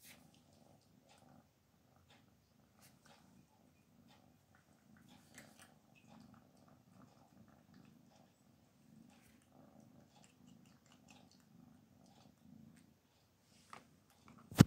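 Black cat chewing dry kibble from a small glass bowl: faint, irregular crunches and clicks. A single sharp knock sounds just before the end.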